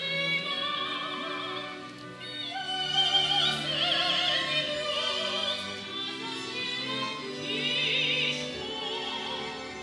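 Operatic soprano singing long held notes with wide vibrato over orchestral accompaniment.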